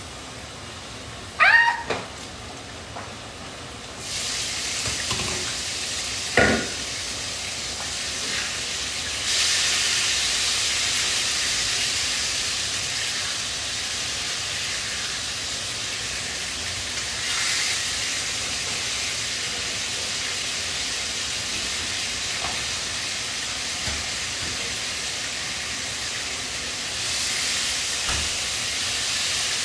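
Burger patties sizzling as they fry in a pan: a steady hiss that starts about four seconds in and grows louder near ten seconds, with a couple of brief swells later. Before the sizzling builds there is a short, loud, rising high-pitched sound near the start and a sharp knock a few seconds later.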